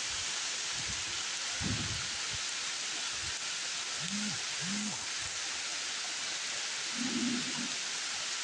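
Heavy rain pouring down steadily in a torrential downpour: an even, unbroken hiss.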